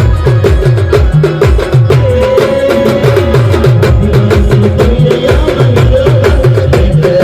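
Adivasi band music played loud: a fast, even drum beat of deep bass-drum hits that drop in pitch, under a melody line that holds a long note from about two seconds in.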